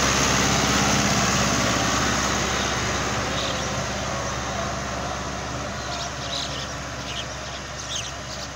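Ford 5880 tractor's diesel engine running steadily under load as it pulls a fully opened disc harrow through dry soil, growing gradually fainter as the tractor moves away.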